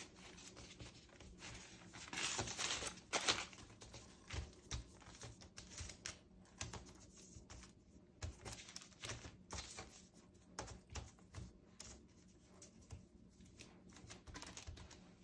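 Baking parchment rustling and crinkling under hands that twist strips of puff pastry with poppy-seed filling, with light taps and handling noises throughout; the loudest rustle comes about two to three seconds in.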